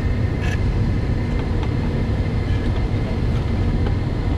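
Steady low rumble of running mechanical equipment, with a few faint clicks and taps as the metal pump body is handled into place.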